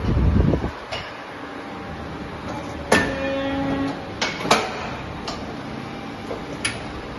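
Polar 76 EM guillotine paper cutter working: a heavy low thud as it cycles at the start, then a series of sharp mechanical clicks and clunks, with a brief hum about three seconds in.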